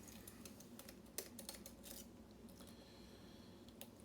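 Faint, irregular small clicks and ticks of a hook pick and tension wrench working the pins inside a lock, the sharpest about a second in.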